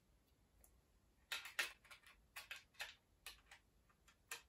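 Light, irregular clicks and taps, about a dozen, beginning about a second in: fingers handling the opened HP T420 thin client's board and working its small internal USB flash drive.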